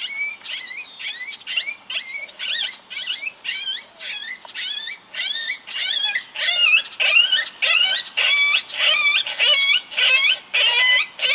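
MFK Boonesmack Duo predator call sounding a run of short, wavering, whining canine-like calls, about two a second, growing louder about six seconds in: a call sequence meant to bring coyotes in to the decoy.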